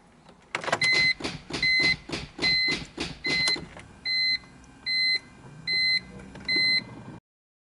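A car's electronic warning chime beeps eight times, evenly, about one beep every 0.8 seconds. Sharp clicking sounds along with the first four beeps, and the beeping then stops abruptly.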